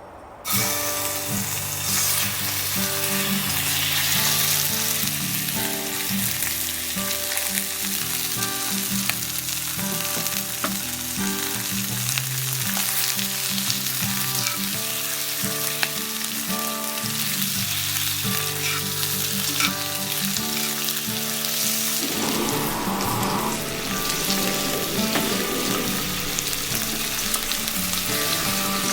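Food frying with a steady sizzle, starting abruptly about half a second in, over background music of held notes.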